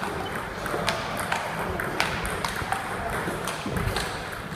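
Table tennis rally: the ball clicks off the paddles and the table in a quick, irregular string of sharp ticks, about two to three a second.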